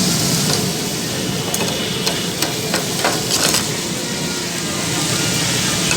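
Liver frying on a tawa griddle with a steady sizzle, and a cluster of metal spatula knocks on the griddle in the middle.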